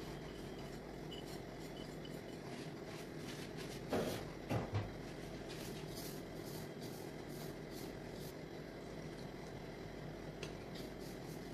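Hands rubbing and mixing a dry, crumbly flour mixture in a ceramic bowl, with soft rustling and faint clicks over a steady low hiss. About four seconds in come three short, dull knocks.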